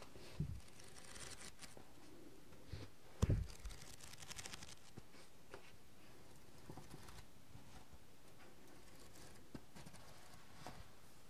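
A paperback book handled close to binaural microphones: paper pages rustling and being turned, with a couple of low bumps, the louder about three seconds in.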